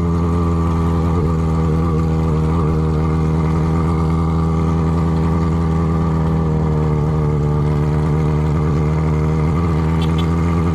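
Yamaha XJ6's inline-four engine running at steady revs, loud through a bare exhaust pipe with the muffler tip removed.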